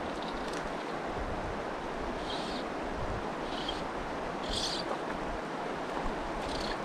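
Steady rush of a shallow, fast-flowing mountain stream over stones, with a few short, hissy splashes from a hooked trout thrashing at the surface.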